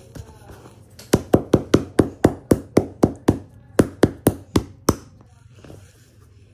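A rapid series of about fifteen sharp knocks, about four a second, starting about a second in and stopping near the five-second mark with a brief pause midway.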